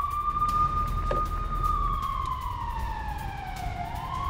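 A siren wailing in a slow rise and fall: it holds high, slides down for about two seconds, then climbs again near the end, with a low rumble beneath it.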